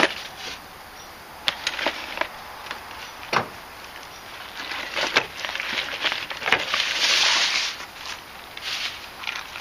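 A small cardboard box of hardware is cut and torn open by hand. There are scattered knocks and taps, and a longer rough tearing noise about seven seconds in is the loudest part.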